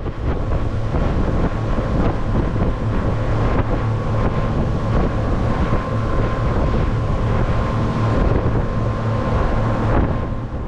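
Motorboat under way at a steady speed: the engine gives an even drone under heavy wind noise on the microphone.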